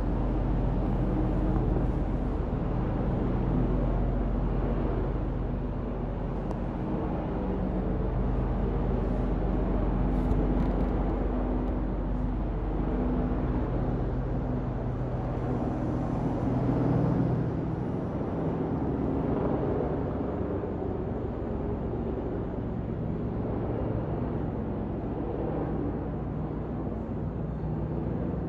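Steady low hum of a running engine or motor, with several held low tones and a slight swell in level about two-thirds of the way through.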